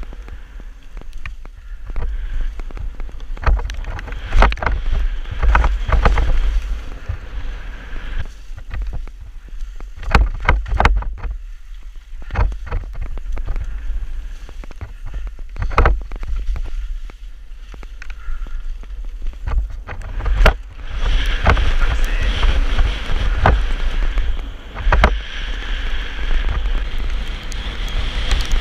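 Mountain bike ridden fast down a wet trail: wind buffeting the camera microphone as a constant rumble, with tyre noise on wet dirt and many sharp knocks and rattles as the bike hits bumps and roots. A steadier hiss builds over the last several seconds.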